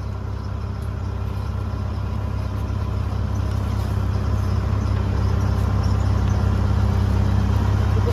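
An engine running steadily at idle, a low hum that grows gradually louder through the second half.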